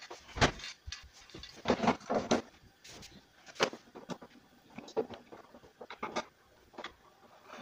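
Irregular clicks and knocks of a screwdriver and hands working on the plastic and metal casing of a disassembled LG LED TV, with a heavier thump about half a second in and a quick run of knocks around two seconds in.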